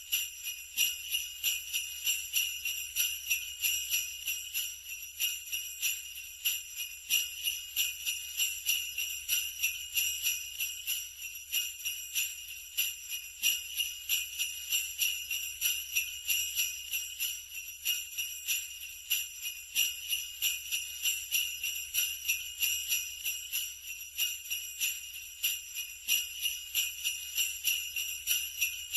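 Sleigh bells jingling, shaken in a steady rhythm of about two to three shakes a second.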